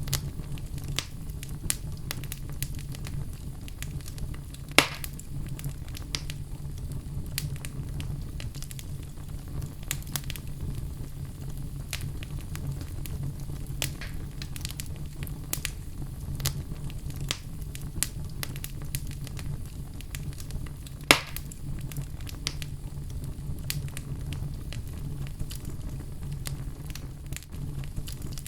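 Wood fire crackling in a fireplace: many small pops and snaps over a low steady rumble, with two much louder pops, one about five seconds in and one about twenty-one seconds in.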